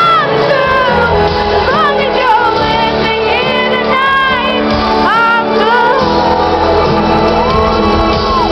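A female lead vocalist singing a slow pop ballad live over a backing track. Her voice slides through runs and ends on a long held note near the end, with audience noise underneath.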